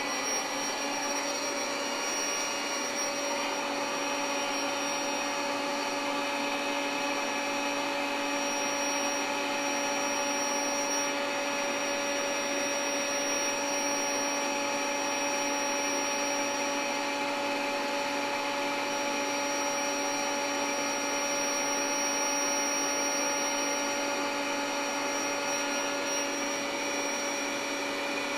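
Built-in electric air pump of a SoundAsleep Dream Series queen air mattress running steadily as it inflates the mattress: an even motor hum with a thin high whine above it.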